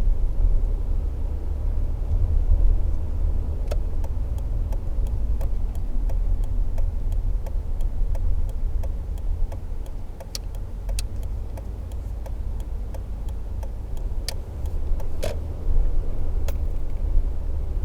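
Toyota Tacoma pickup being driven, heard from inside the cab: a steady low engine and road rumble, easing somewhat between about ten and fifteen seconds in, with scattered sharp clicks and rattles throughout.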